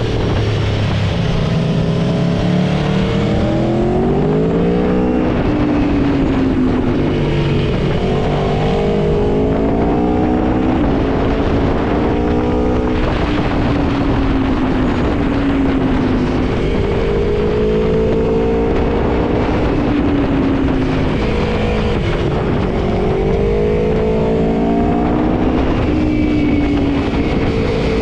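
Aprilia Tuono V4 motorcycle's V4 engine under way, its note rising and dropping back again and again as it pulls through the gears, over steady wind and road rush.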